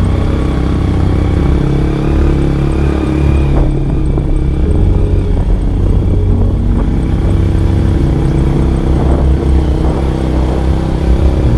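Honda EX5 underbone motorcycle's single-cylinder four-stroke engine running steadily as the bike is ridden.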